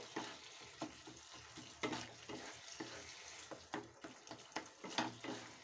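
Wooden spatula mashing and stirring soft cooked tomato chutney in a non-stick kadhai: a run of faint, wet, squelching strokes about every half second.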